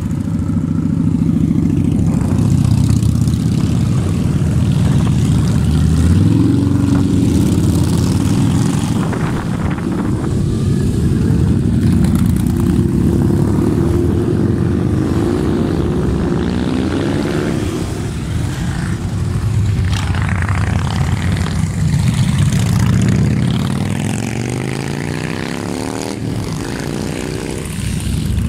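A steady stream of cruiser and touring motorcycles riding past one after another, their engines running loudly, with engine notes rising and falling as individual bikes accelerate through the turn.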